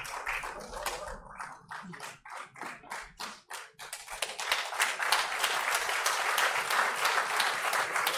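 Audience clapping: scattered separate claps at first, swelling to fuller, louder applause about four seconds in.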